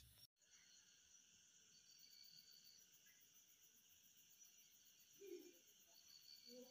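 Faint, steady chirping of night insects, with a short low sound about five seconds in.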